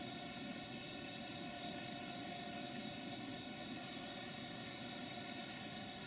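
Steady mechanical drone: a low rumble overlaid with a set of steady, unchanging tones, like running machinery.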